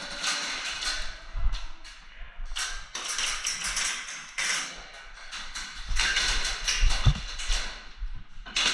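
Close-miked movement noise from an airsoft player's gear: rustling and scraping with scattered taps and a few dull thumps, the loudest about a second and a half in and again about seven seconds in.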